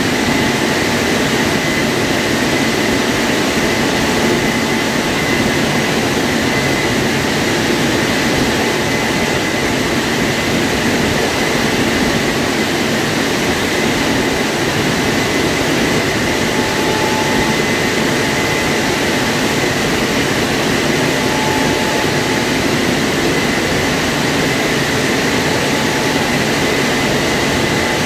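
WashTec SoftCare2 Pro rollover car wash running over a car, a loud steady rushing noise with a thin high whine running through it.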